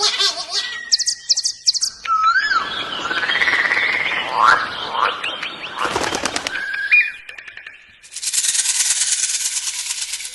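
A string of different bird calls, each lasting a second or two: fast chirps and a held whistle, then gliding whistled calls over busy chatter, a quick rattle, and a loud buzzy trill near the end.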